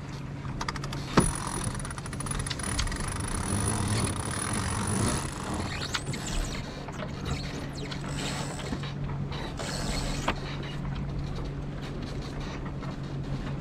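Deck gear and rigging of an X-99 racing sailboat working under way: scattered clicking and creaking over a steady low hum, with a sharp knock about a second in and another about ten seconds in.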